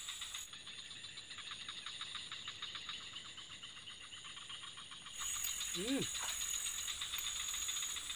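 Insects trilling in a rapid, steady pulsing chirr. About five seconds in the trill drops away and a brief human vocal sound follows.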